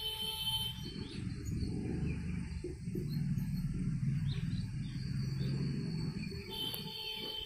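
Marker pen squeaking and rubbing on a whiteboard while drawing: short high squeaks near the start and again near the end, over low rumbling background noise.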